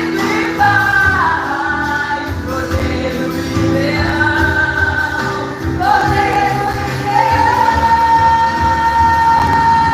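Live worship band with singers performing a gospel song. In the second half a long sung note is held steady.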